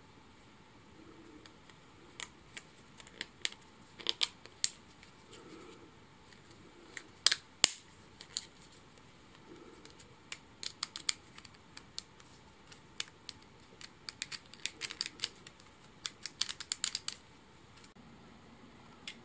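White 3D-printed plastic parts clicking and snapping as a finned ring is worked by hand into its square frame. The clicks come irregularly, the loudest about seven seconds in, with a quick run of many clicks toward the end.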